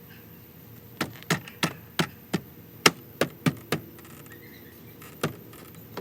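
Sharp knocks and clicks from hands working on a car door: a quick run of about nine, roughly three a second, then two more spaced out near the end.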